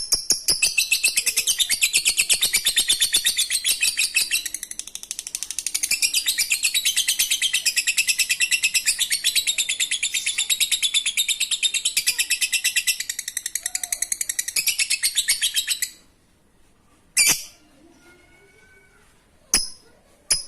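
Lovebird ngekek: a long, fast, unbroken chattering trill of high notes that lasts about fifteen seconds and stops abruptly. A few single sharp calls follow near the end.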